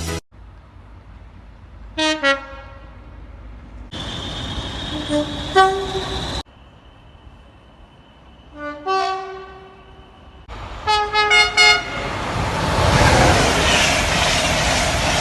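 Train horns sounding short two-tone blasts in a run of separate clips: a pair about two seconds in, two more around five seconds, one near nine seconds, and a quick series near eleven seconds. After that a train runs past with a loud, steady rush of wheel and air noise.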